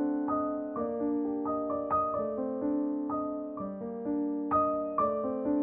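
Background piano music: a slow melody of single notes and chords, each note struck and fading, about two a second.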